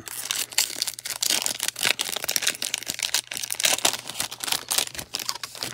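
Foil wrapper of a Panini Donruss basketball trading-card pack crinkling and tearing as gloved hands rip it open and peel it back from the cards.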